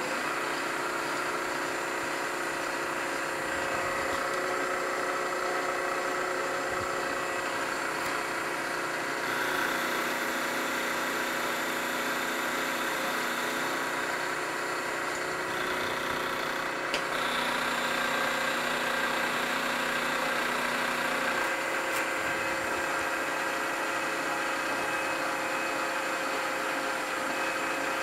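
Vertical milling machine spindle running steadily while an end mill takes a facing cut across a cast aluminium part, milling it down to thickness. The sound changes from about a third of the way in to about three quarters of the way through, while the cutter is on the part, with a single sharp click about two thirds of the way in.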